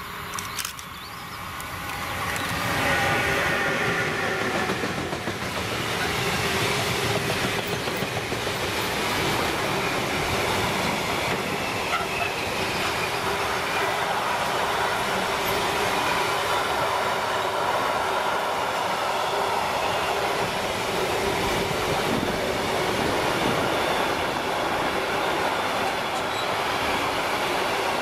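An electric freight locomotive passes close by, then a long intermodal train of container and trailer wagons rolls past. The sound builds over the first few seconds as the locomotive arrives, then settles into a steady rush of rolling wheels with faint steady tones over it.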